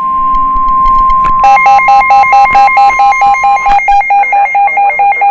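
NOAA Weather Radio's warning alarm tone: one steady, high single tone announcing that a warning follows. It cuts off near four seconds in. About a second and a half in, a weather radio receiver's own alert joins it, a rapid run of alternating electronic beeps at about four a second that carries on to the end.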